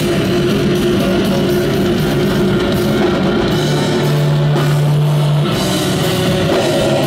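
Black metal band playing live, heard loud from the crowd: distorted guitars and drums in a dense wall of sound, with held low chords that change twice.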